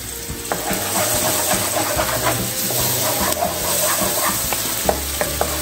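Chopped onion and ground garlic sizzling in hot oil in a wok, stirred with a wooden spoon: a steady hiss with many small crackles as the onion-and-garlic base (aderezo) browns.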